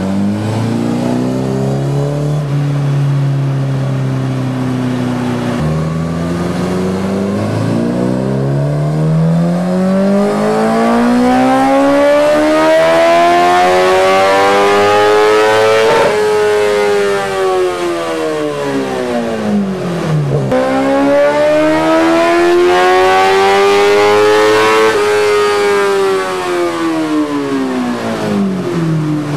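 Sport motorcycle engine driving its spinning rear wheel while the bike stays in place. It gives a few short revs, then twice climbs slowly and steadily to high revs and winds back down.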